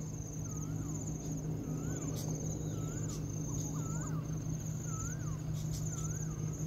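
Insects trilling steadily with a fine pulsing texture, while a bird repeats short rising-and-falling whistled calls every second or so. A low steady hum runs underneath.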